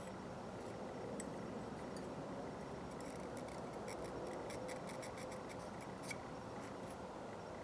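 Light, irregular clicking and scratching of a small tool working inside a Craftsman 1/4" ratchet head, cleaning the old grease out of it, over a steady background hiss. The clicks come thickest in the middle.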